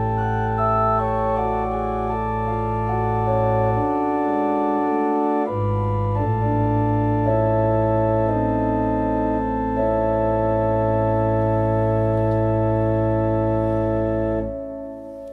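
Slow, quiet organ music: sustained chords changing over a held bass note, the bass dropping out briefly about four seconds in, then the music fading away near the end.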